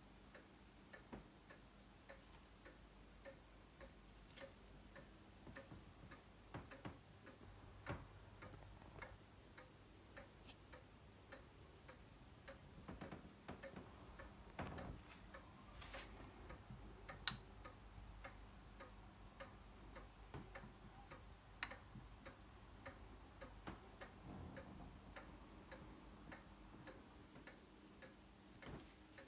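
Faint, steady ticking, about two ticks a second, with two sharper clicks in the second half.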